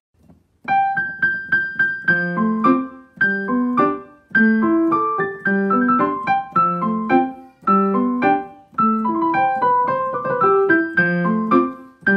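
Background piano music: a light melody of short, ringing notes in repeating phrases, starting about a second in after a brief silence.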